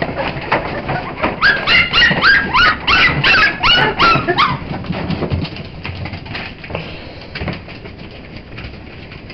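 Staffordshire bull terrier puppies whining and yelping, hungry for their food: a quick run of about eight high cries that rise and fall in pitch, starting about a second and a half in. The cries die down after a few seconds.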